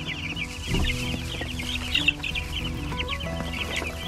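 A brood of young chicks peeping nonstop, many high cheeps overlapping, over background music in long held notes.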